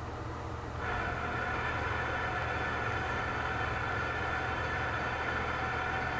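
A machine switches on about a second in and runs with a steady hum and whine, over a constant low hum.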